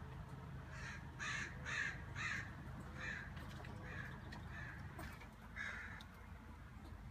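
A series of about eight short, harsh animal calls, a few to a second, starting just under a second in and stopping about a second before the end.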